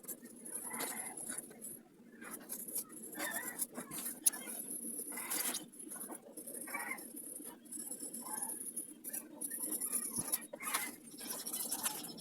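Dark blue coloured pencil shading on paper: irregular scratchy strokes, some short and some drawn out, coming and going.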